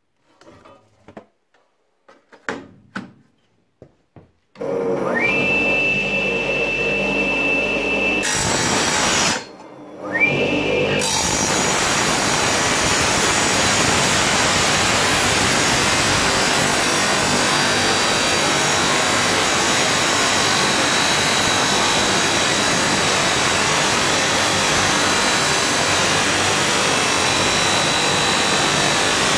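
A few handling clicks, then a wet tile saw's motor starts with a rising whine about four and a half seconds in and runs steadily, drops out briefly and spins up again. From about eleven seconds its diamond blade grinds steadily through the sheet-metal case of an electronic device, throwing sparks.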